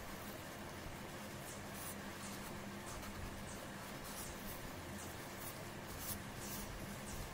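Metal palette knife spreading and scraping acrylic paint across paper: a run of soft, short, irregular scraping strokes over a faint steady hum.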